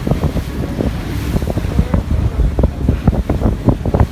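Small fishing boat running at speed over the sea, with heavy wind buffeting the microphone and many irregular thumps over a low rumble.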